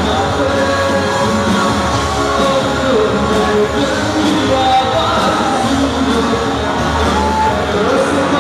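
Live rock band playing loud: a male singer's voice over electric bass, guitars and drums.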